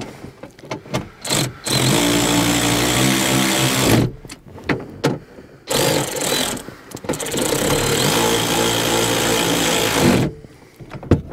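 A cordless power ratchet runs twice, driving the 11 mm bolts that hold a steel under-seat lockbox to the floor: first a burst of about two seconds, then a longer one of about four seconds, with knocks and clicks of the tool and metal between.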